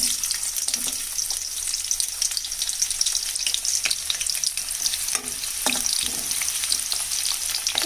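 Chopped onion sizzling and crackling in hot oil in a pan, a steady frying hiss dotted with small pops.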